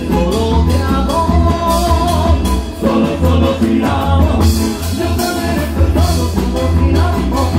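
Live band music: a bandoneon carrying the melody over electric bass, acoustic guitar and percussion keeping a steady beat.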